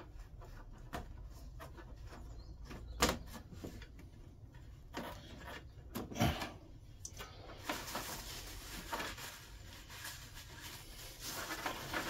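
Gloved hands fitting a diesel heater fuel pump's fuel pipes and hose clamps: scattered small clicks and knocks, a sharper knock about three seconds in and another about six seconds in, with some rustling.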